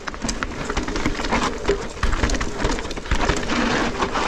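Mountain bike ridden over rough ground, heard from the rider's action camera: tyre noise with a stream of knocks and rattles from the bike, and wind rumbling on the microphone.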